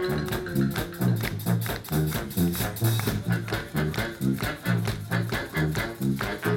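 Live brass band music: alto and baritone saxophones, trombone and sousaphone playing over a drum kit, with the bass line pulsing in a steady beat about twice a second.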